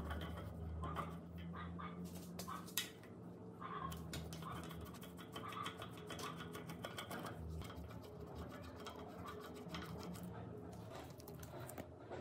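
Flat-blade screwdriver scraping and clicking in the slots of the rusty screws that hold a steel jaw plate on an old bench vise, as the screws are turned loose. A low steady hum runs underneath.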